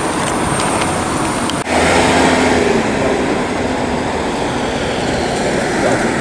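Steady road traffic noise from passing vehicles, with a brief dip about one and a half seconds in before it picks up again, slightly louder.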